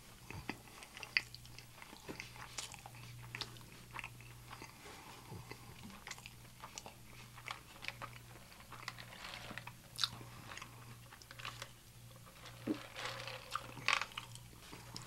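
A person chewing food close to the microphone, with wet mouth clicks and smacks scattered throughout and a few sharper clicks standing out. A faint steady low hum lies underneath.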